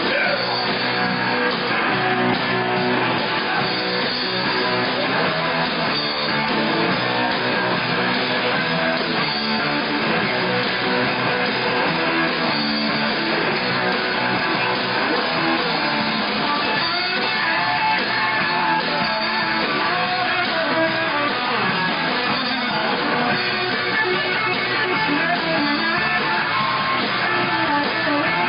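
Rock and roll band playing live, with guitars to the fore.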